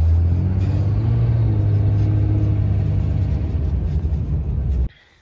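Turbocharged pickup truck engine accelerating on a dirt road, heard from inside the cab: the engine note rises over the first second or so, then holds steady under tyre and road noise. The sound cuts off suddenly near the end.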